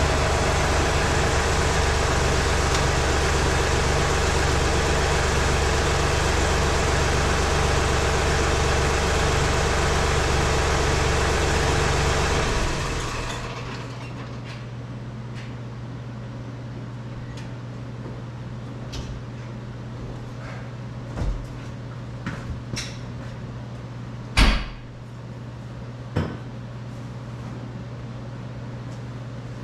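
John Deere 3046R compact tractor's diesel engine running steadily. About thirteen seconds in the sound falls away to a quieter, lower steady hum, followed by a few sharp knocks, the loudest about twenty-four seconds in.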